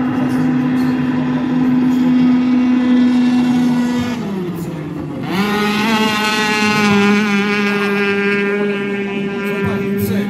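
Racing powerboat's outboard engine running at high revs. About four seconds in its pitch drops as the throttle comes off at the turn buoy, then about a second later it climbs sharply back up and holds high as the boat accelerates out of the turn.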